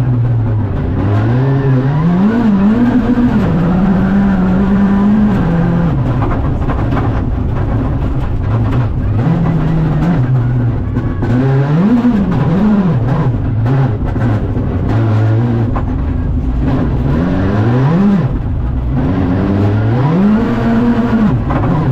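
Škoda Fabia Rally2 Evo's turbocharged 1.6-litre four-cylinder engine heard from inside the cabin, revving up and dropping again and again as the car is driven hard through the low gears between corners.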